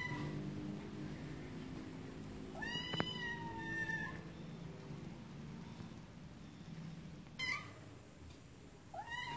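Domestic cat meowing: a long, drawn-out meow about three seconds in, a short meow about two-thirds of the way through, and another starting just before the end.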